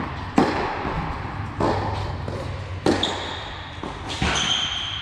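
Tennis ball struck back and forth in a rally: four sharp racket-and-bounce impacts about a second and a quarter apart, with two short high squeaks from shoes on the hard court in the second half.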